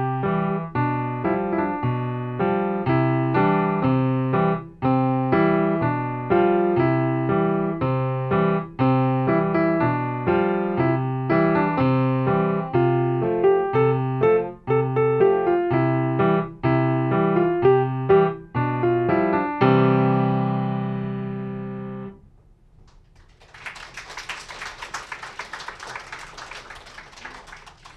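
Yamaha grand piano played as a run of short, evenly paced notes and chords, ending about 20 seconds in on a final chord that rings for about two seconds. After a brief silence, applause starts near the end.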